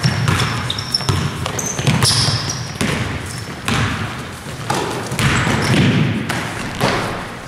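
A basketball being dribbled on a hardwood gym floor, a bounce every second or so, with brief high sneaker squeaks and players' voices in the background.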